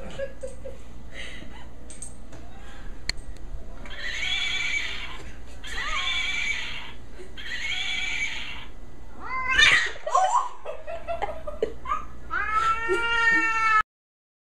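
Domestic cat yowling: three drawn-out, rough yowls of about a second each, then a rising cry and a higher, wavering cry near the end, cut off abruptly.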